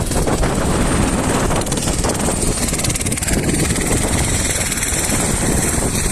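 Helicopter engine and rotor running loudly and steadily on the ground just before lift-off, with a faint high whine over the rotor noise.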